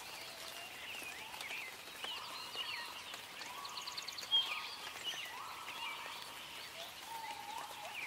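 Nature ambience of many birds calling and chirping, whistled notes and quick chirps overlapping without a break. A fast rattling trill comes just before four seconds in, followed by one sharp, loud chirp.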